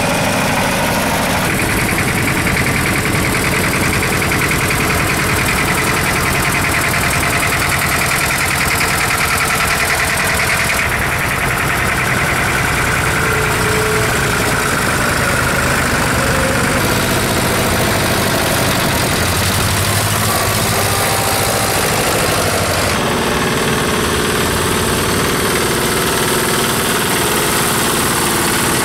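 Old diesel tractor engines running steadily as the tractors drive slowly past one after another, first a Fendt Dieselross. The sound changes abruptly a few times as one tractor gives way to the next.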